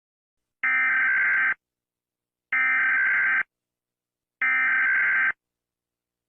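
Emergency Alert System SAME header: three identical bursts of buzzing digital data tones, each about a second long and about two seconds apart. This is the coded header that opens an EAS alert, ahead of the long attention tone.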